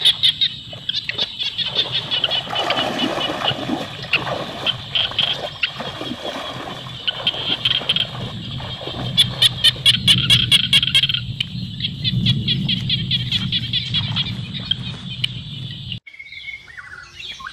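Birds chirping in fast repeated trills, over the swishing and splashing of footsteps through rice plants and shallow paddy water. The sound changes abruptly about a second before the end.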